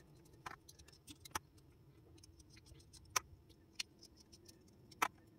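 Faint, scattered metallic clicks of small steel bolts being unscrewed by hand from the side of an alloy picatinny riser rail's clamp.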